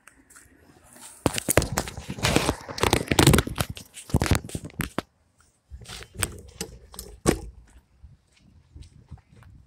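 Loud rustling and crackling handling noise on the microphone of a handheld camera on the move, heaviest in the first half, then thinning to scattered clicks and soft rustles.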